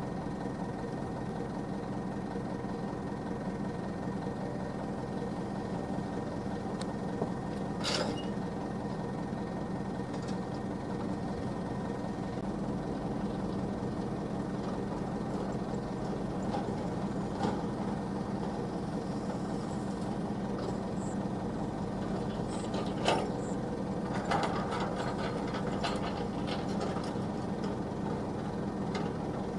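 Heavy diesel machinery engine running steadily, with a few sharp knocks or clanks, one about eight seconds in and several in the later part.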